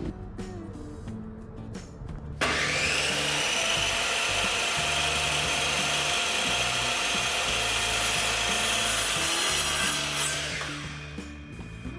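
A power tool cutting or abrading wood, starting abruptly about two and a half seconds in, running steadily, and dying away about two seconds before the end.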